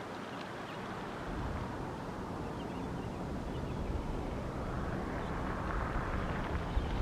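Outdoor background noise: wind rumbling on the microphone, with a rushing noise that swells near the end and drops off just after.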